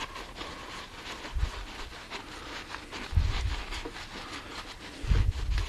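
Shop towel rubbing and scrubbing inside the steel Morse taper 3 bore of a lathe spindle, a faint rustle with small scrapes, and three dull low thumps about two seconds apart.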